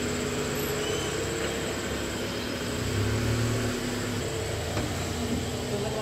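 A small Hyundai hatchback's engine idling: a steady hum over a low rumble.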